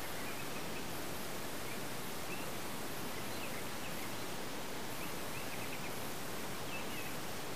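Steady hiss with faint, short bird chirps now and then.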